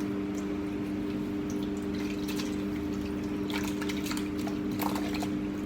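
Wet, sloshing handling sounds and a few short clicks as chicken pieces in a liquid marinade are moved about, over a steady low hum.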